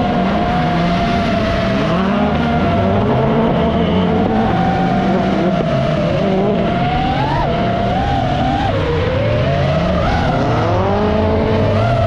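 Rallycross race cars' engines revving and shifting, with a higher whine that rises and falls.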